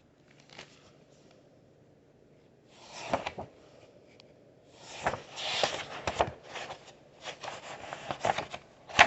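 Paper rustling as a picture-book page is turned and handled, in several irregular bursts with a few sharp ticks.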